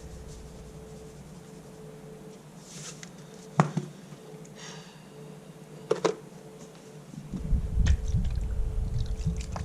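Handling noise: two sharp knocks a few seconds apart and a brief hiss, over a faint steady hum, then a low rumble from about seven seconds in.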